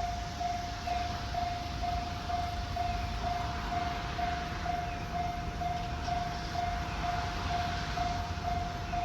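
Japanese railway level crossing's electronic warning bell sounding, a single tone repeating steadily about twice a second, over a steady rumble and hiss that swells in the middle.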